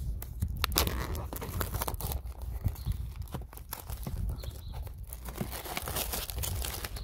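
Clear plastic shrink-wrap being peeled and torn off a stack of wooden model-kit boards, crinkling and crackling in a dense, irregular run.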